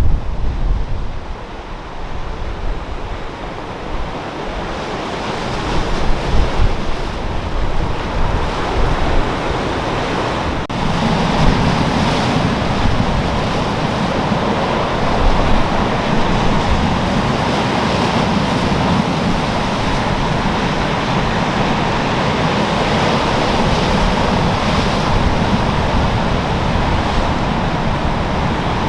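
Storm-driven sea: heavy waves breaking and surf churning, with wind buffeting the microphone. The surf turns denser and steadier about a third of the way through.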